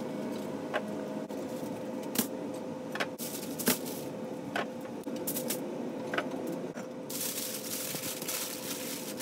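Heavy-duty aluminium foil crinkling and crackling as a rack of ribs is folded up in it. Scattered clicks at first, then a dense, continuous crackle from about seven seconds in as the foil is crushed around the rack.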